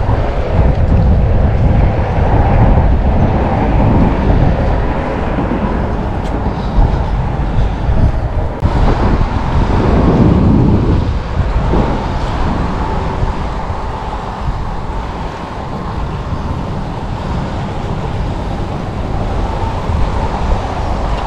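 Wind buffeting the microphone: a loud, low rumble that swells and eases unevenly with the gusts.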